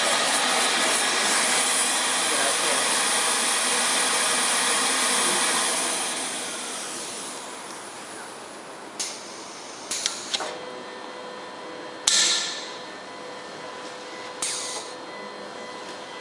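CTP platesetter running with a steady rushing noise that winds down and fades away between about six and eight seconds in. Then its plate-handling mechanism gives a series of sharp mechanical clicks, one about twelve seconds in followed by a short hiss.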